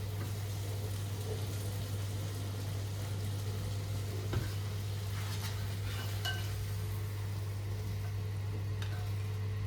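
Food sizzling in a frying pan with a steady hiss, a few light utensil clicks against the pan, and a steady low hum underneath.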